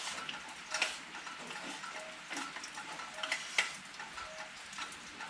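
Irregular light clicks and taps of chopsticks and tableware on bowls and plates during a meal, some with a brief ring, over a steady hiss of rain.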